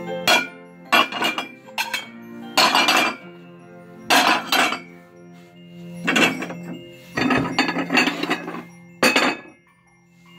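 Porcelain plates clinking and clattering against each other as they are handled, in about ten short bursts, over steady background music.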